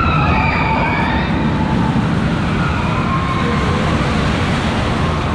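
Steel roller coaster train running along its track with a loud, steady rumble, while riders' screams rise and fall above it.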